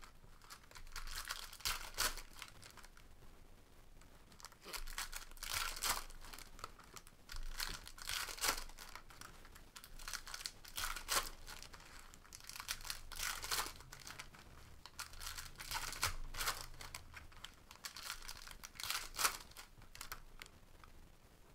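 Foil wrappers of Panini Prizm basketball packs crinkling and tearing as the packs are opened by hand, in irregular rustling bursts.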